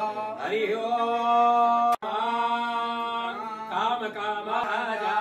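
Sanskrit mantras chanted in long, steady held notes, with a sudden short break about two seconds in.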